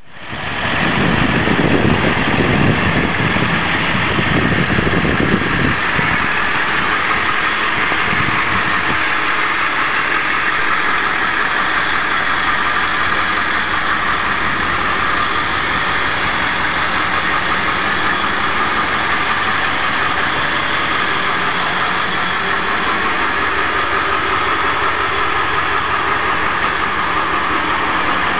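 Ford E-series ambulance idling steadily, with a heavier low rumble in the first several seconds.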